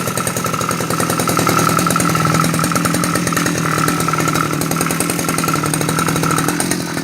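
Two-stroke brush cutter engine idling steadily at the lowest throttle position without stalling, its carburettor freshly adjusted.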